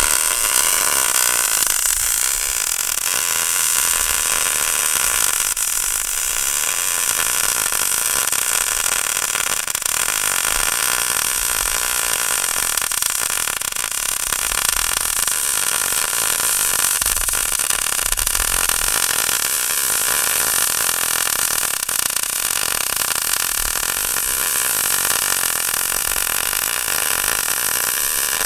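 Angle grinder running on metal without a break: a steady high whine over a grinding hiss.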